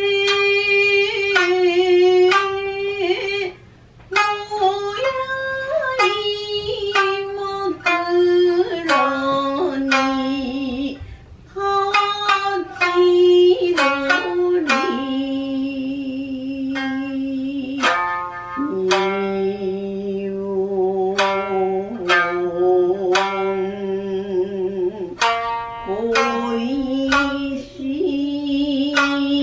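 Shamisen plucked in a slow traditional melody, each note a sharp twang, with a woman's voice singing long, wavering held notes over it.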